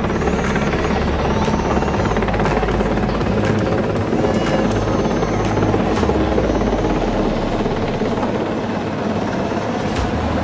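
Helicopter flying overhead: a loud, steady rotor and engine drone.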